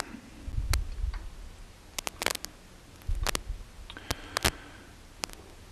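Metal lathe spindle with an ER32 collet chuck being turned slowly by hand against a dial test indicator, giving faint scattered clicks and a couple of short low rumbles.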